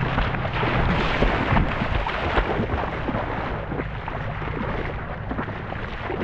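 Wind buffeting the microphone with a heavy low rumble and irregular thumps, as from a phone carried while running on a windy beach; the noise eases somewhat in the second half.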